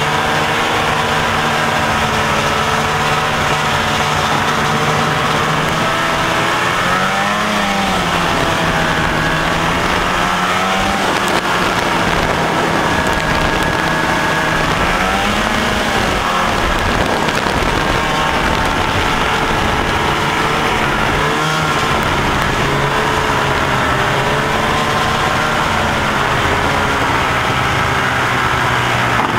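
Polaris snowmobile engine running under way, its pitch swelling up and back down twice, about seven and fifteen seconds in, as the throttle is worked. A steady rushing hiss runs underneath.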